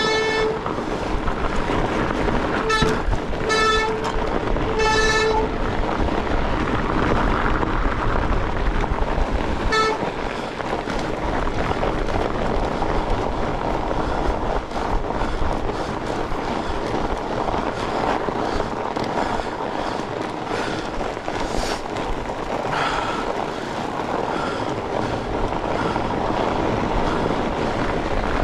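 Fat bike squeaking while being ridden: a short, horn-like squeak at the start, three more about 3, 4 and 5 seconds in, and a last one about 10 seconds in. Steady riding noise runs underneath.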